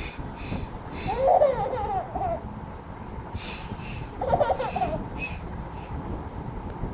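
Baby of about ten months laughing in two bursts, about a second in and again about four seconds in, with short breathy puffs between.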